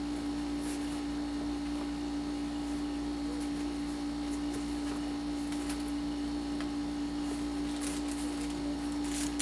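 A steady, unchanging hum at one mid-low pitch, with a few faint soft ticks and rustles over it.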